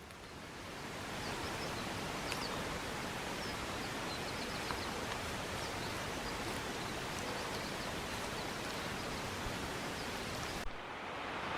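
Outdoor ambience of steady rushing water, with faint high bird chirps scattered through it. About eleven seconds in it cuts to a louder, brighter rush.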